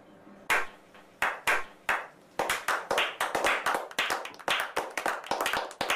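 A small group of people clapping their hands: a few slow, separate claps that quicken about two and a half seconds in into fast, steady clapping.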